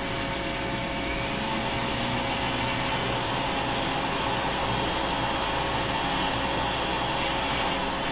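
Vacuum dust extractor drawing air steadily through a hose and a clear shield clipped at the tip of a small rotary carving handpiece, mixed with the even whine of the bur grinding fine detail into wood.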